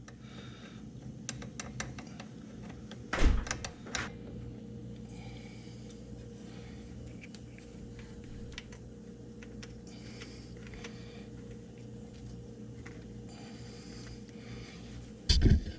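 Small metallic clicks and ticks of a spark plug socket on a universal-joint extension being worked onto the plug in an ATV engine, binding slightly as it threads in. There is a louder knock about three seconds in and another near the end, over a steady low hum.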